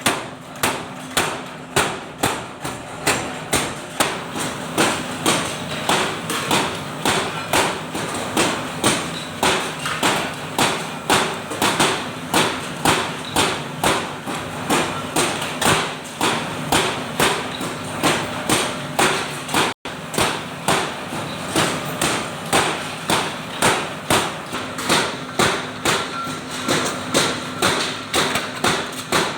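Hammer blows on metal during forging, struck in a steady, even rhythm of about two to three blows a second, with a faint steady hum underneath.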